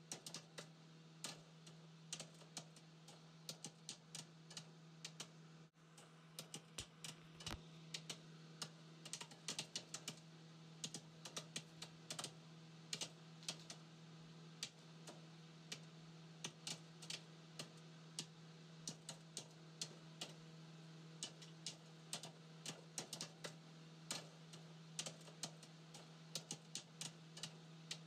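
Faint, irregular clicking of typing on a computer keyboard, several keystrokes a second, over a steady low hum.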